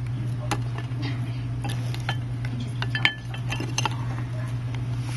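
Scattered small clinks and taps of glass against glass, with one sharper ringing clink about three seconds in, over a steady low hum. These are the sounds of shattered phone cover glass being picked off and handled around a glass dish.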